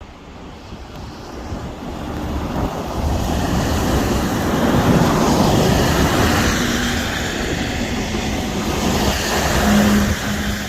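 Traffic and wind noise on a snowy road: a rushing hiss that builds over the first few seconds, peaks about halfway, then eases. A faint engine hum comes in near the end.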